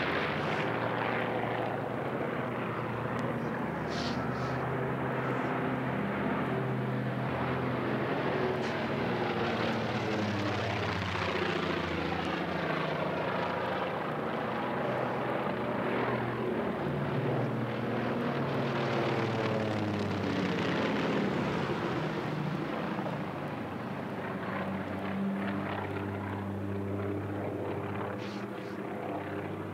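Twin-engine propeller plane flying over, its piston engines droning steadily, the pitch sliding slowly as it passes. It eases off a little in the last several seconds.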